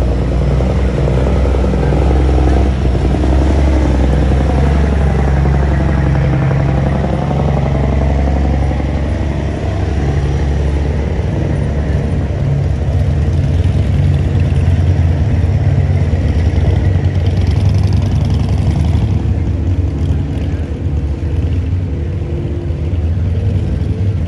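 Street traffic: a steady low engine rumble, with a vehicle passing by about four to ten seconds in.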